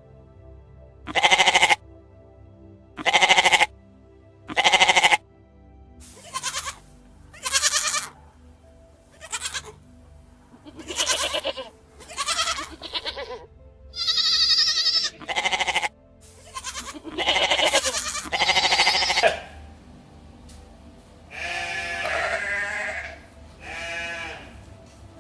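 Goats bleating: about a dozen separate, wavering bleats one after another, some short and some drawn out, including a higher, thinner call about halfway through.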